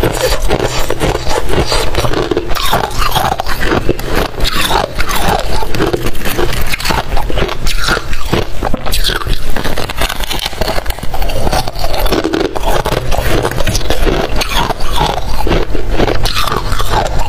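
Close-miked crunching and crackling of freezer frost being bitten and chewed, with some scraping, in a dense, continuous run.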